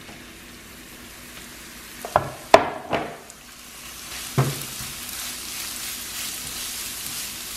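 Riced cauliflower sizzling in hot coconut fat and sesame seeds in a wok as it is stirred. A few sharp knocks of the stirring utensil against the wok come between about two and four and a half seconds in, and the sizzle grows louder after that.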